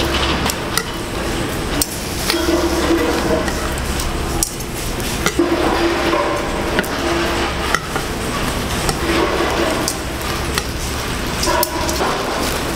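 Metal tongs and a spatula clacking and tapping on a wooden cutting board in irregular knocks while tofu-egg omelets are rolled and moved, over a steady low hum of stall noise.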